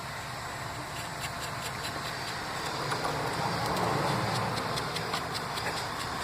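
Light metallic clicks of a nut being threaded by hand onto a rusty battery hold-down rod, over a steady engine-like hum that grows louder about three seconds in.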